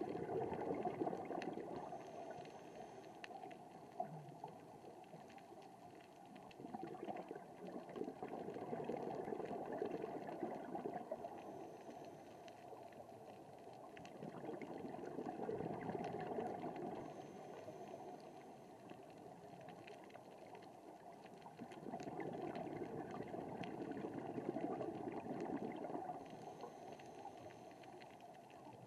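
Scuba diver breathing through a regulator underwater, heard through the camera's housing. Bubbling swells of exhaled air come about every seven seconds, each lasting a few seconds.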